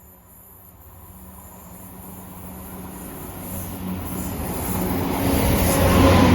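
ScotRail Class 170 Turbostar diesel multiple unit approaching on the line, its engine and wheel noise growing steadily louder.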